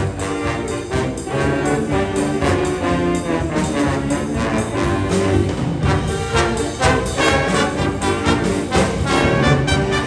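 A band playing music, with brass instruments to the fore over a steady beat.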